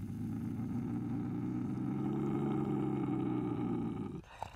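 Trapped bobcat giving one long, low, steady growl that stops about four seconds in.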